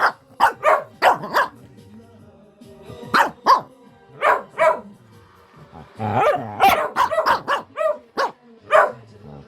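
Dogs barking in rough play: quick runs of sharp barks in three flurries, with a brief pause after the first and again after the second.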